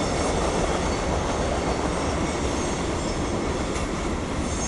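Freight cars of a CSX mixed freight rolling past: a steady rumble of steel wheels on rail, with a faint high-pitched wheel squeal over it.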